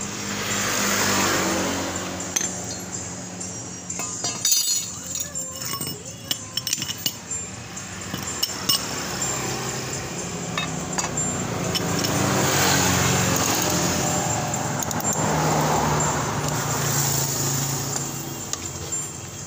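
Metal clinks and knocks of a clutch holder tool and socket bar being fitted to the rear clutch of a Honda Vario 150's CVT, thickest a few seconds in. Vehicle engine noise swells and fades several times underneath.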